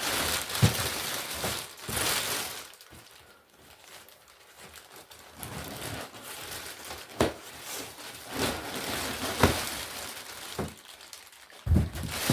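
Packaging being handled during an unboxing: crinkling, rustling wrapping material, with several sharp knocks scattered through.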